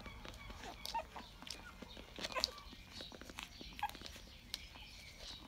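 Rottweiler puppies nursing: a run of wet suckling clicks and smacks, with a few short, high squeaks.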